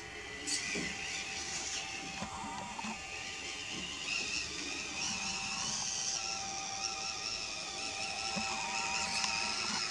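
Small electric drive motor and gearbox of a 1:18-scale FMS Atlas 6x6 RC crawler truck whining steadily as it crawls, the pitch wavering slightly with the throttle.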